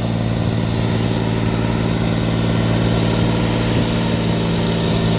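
A vehicle engine running steadily at a constant speed, an even low hum with no revving.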